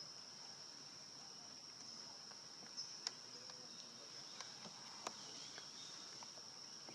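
A steady, high-pitched insect chorus of crickets or cicadas trilling without a break, with a few sharp clicks in the middle.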